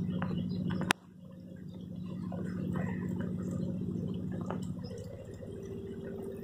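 Water trickling and dripping in a flooded street over a low steady hum, with a single sharp click about a second in, after which the sound briefly drops away.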